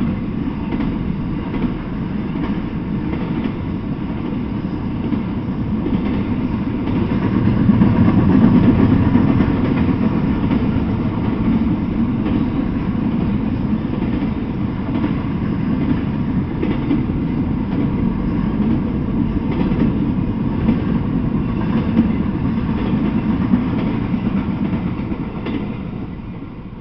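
Freight train of intermodal container cars rolling past: a steady rumble of steel wheels on the rails with occasional faint clicks. It falls away near the end as the last car clears.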